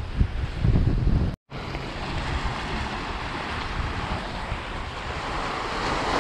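Gusty wind on the microphone for about the first second and a half, then the sound drops out for a moment and gives way to steady surf washing against the jetty's granite rocks, with wind noise over it.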